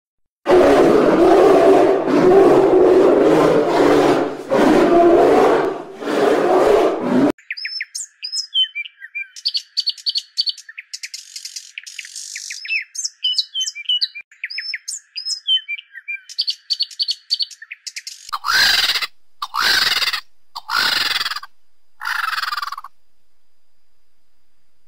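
For about the first seven seconds a loud, dense intro sound with no words. Then about ten seconds of a small songbird's quick high chirps and trills, the bird seen being a great tit. Near the end come four harsh, separate calls that fall in pitch, from vultures.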